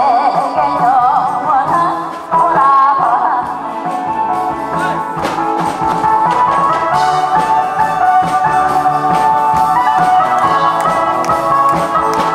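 A woman singing a Korean trot song with wide vibrato over backing music; her phrase ends about three and a half seconds in. The music then plays on alone as an instrumental interlude with a steady beat and percussion.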